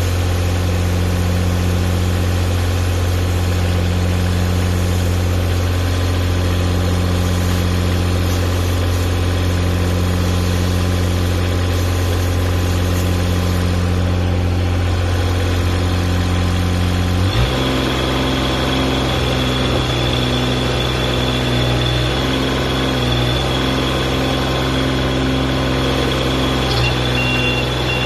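Backhoe-excavator engine running steadily under test. About two-thirds of the way through, its note changes abruptly to a different pitch with a high whine over it. A few short high beeps come near the end.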